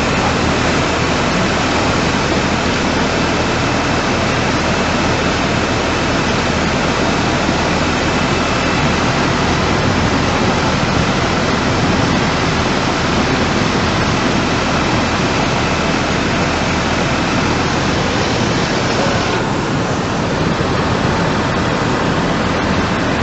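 Muddy flash-flood torrent rushing past, a loud, steady noise of churning water and debris.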